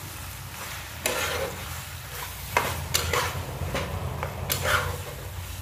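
Steel spatula stirring and scraping thick masala gravy around a kadhai while it sizzles on the heat, with a few sharp knocks of the spatula against the pan.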